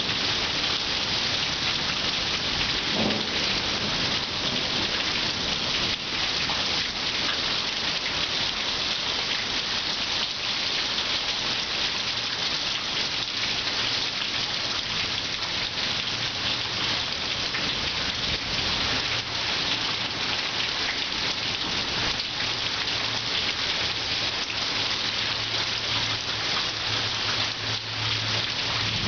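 Steady downpour of rain hissing on trees and ground, with a low rumble of thunder coming in about halfway through and growing stronger toward the end.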